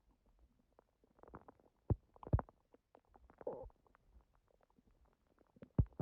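Human stomach gurgling: a scatter of faint short pops and squelches, with louder gurgles about two seconds in, a longer one around three and a half seconds, and another near the end. It is digestion hours after a big udon meal, which the owner takes for her stomach reacting to gluten after a long break.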